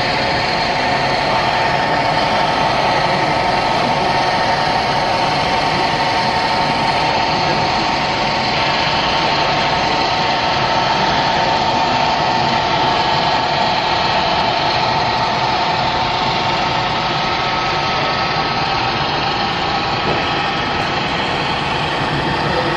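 Model diesel locomotives running a freight train along a layout: a steady, unbroken engine-like drone.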